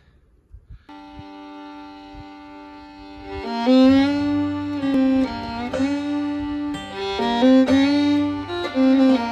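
Intro music: a held drone note starts about a second in, and a stepping melody joins it about three and a half seconds in.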